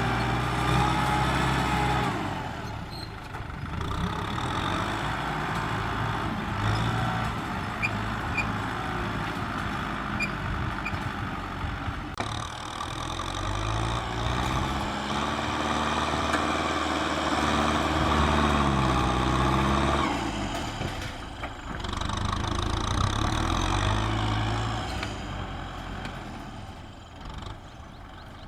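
Kubota M6040SU tractor's diesel engine running under varying throttle, its pitch rising about halfway through, holding for a few seconds, then dropping back; the sound fades toward the end.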